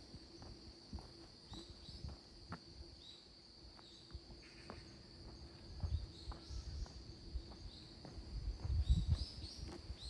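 Crickets chirping in a steady chorus, with scattered light footsteps and low rumbles about six seconds in and again near the end.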